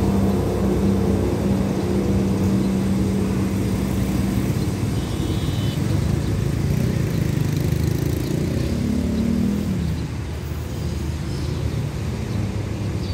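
Diesel multiple-unit train pulling away from the station, its engine drone steady at first and then fading as it draws off down the line.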